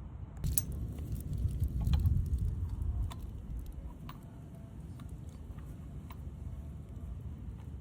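Light handling noise: scattered small clicks and taps as small parts are moved about, over a low rumble that is strongest in the first few seconds.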